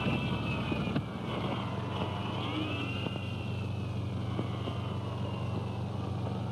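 Car engine running with a steady low drone, with a faint high wavering tone above it.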